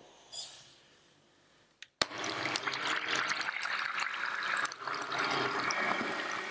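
Caster sugar poured into a glass bowl with a short hiss, then about two seconds in an electric hand mixer starts whipping liquid cream, its beaters whirring and splashing steadily in the bowl.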